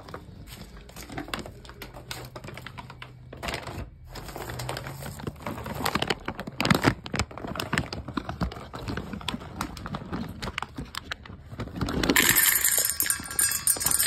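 Plastic bag crinkling and dry cat kibble rattling as it is handled, with a denser rush of kibble pouring and clattering into a metal bowl and onto pavement near the end.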